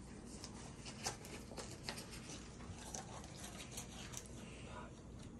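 Faint scattered taps and rustles of dog booties: rubber-soled booties shifting on a tile floor and a bootie being handled while it is fitted to the dog's paw, over a low steady hum.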